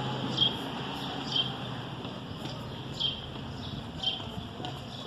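Footsteps on a paved street: hard shoe heels clicking about once a second over a steady background hum.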